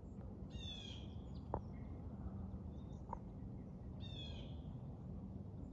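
A bird calls twice, a short call about three and a half seconds apart, over steady outdoor background hiss, with two small clicks in between.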